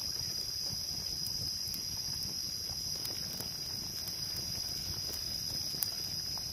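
Steady, high-pitched chorus of insects, with a low rumble underneath and a few faint clicks, one sharper than the rest near the end.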